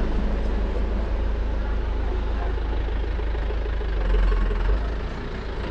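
Wind buffeting the microphone: a steady low rumble under a faint outdoor hiss, with a stronger gust about four seconds in.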